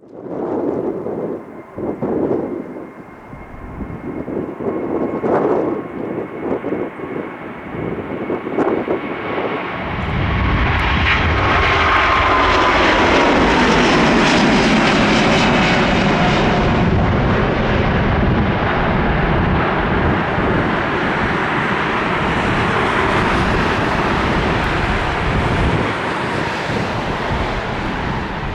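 Jet airliner's engines: a steady distant whine for the first ten seconds, then a loud jet rush building as the aircraft passes close, its whine gliding down in pitch, settling into a steady rumble.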